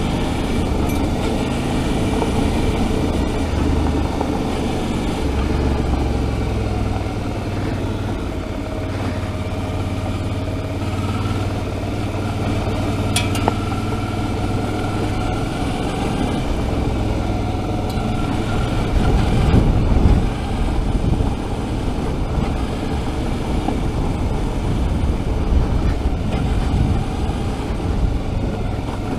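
Suzuki V-Strom 650's V-twin engine running steadily while the motorcycle rides over a gravel road, with tyre and road noise underneath. A few louder jolts come about two-thirds of the way through.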